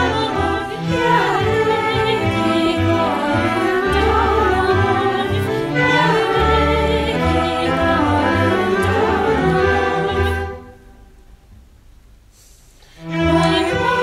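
Mixed student choir singing with a string orchestra of violins, cellos and double basses in a polyphonic arrangement of a Turkish folk song (türkü). A little over ten seconds in, the music breaks off for about two seconds, then comes back in with the bass strings.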